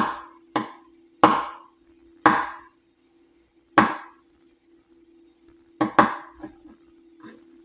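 Knife chopping on a wooden cutting board: about eight sharp, irregular chops with gaps of up to a second and a half, then a few lighter taps near the end, over a steady low hum.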